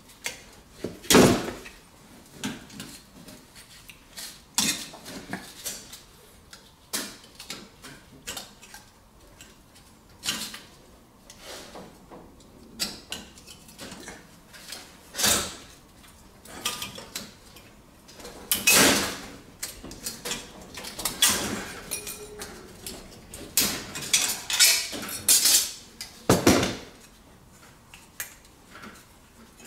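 Irregular metallic clinks, knocks and short scrapes as tools and fittings are worked on the cut copper pipe end of a baseboard radiator.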